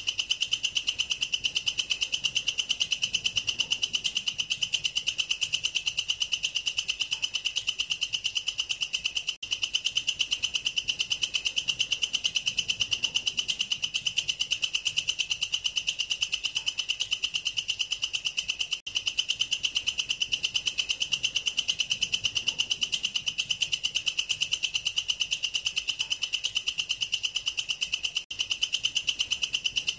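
Katydid (bush cricket) stridulating its calling song: a continuous high-pitched, rapidly pulsing trill. It breaks off for a split second about every nine and a half seconds.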